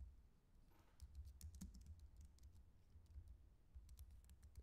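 Faint, irregular clicking of computer keyboard keys as names are typed in, over a faint low rumble.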